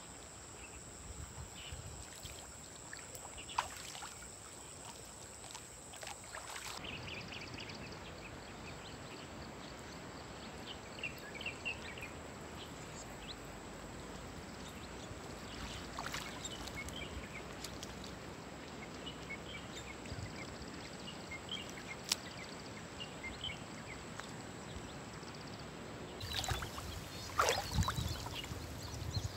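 River water sloshing and lapping around a person wading chest-deep while working a cast net, with scattered small splashes and louder splashing near the end as the wet net is hauled up out of the water.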